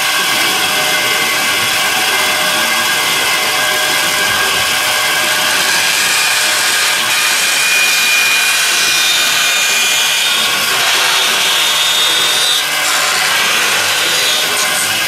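Electric woodworking power tool running steadily as it works wood, with high tones that shift in pitch partway through.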